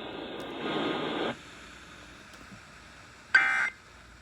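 Radio audio cuts off about a second in, leaving faint hiss. Near the end comes a short, loud burst of warbling data tones from an Emergency Alert System broadcast: the first of the three End of Message data bursts that close the alert test.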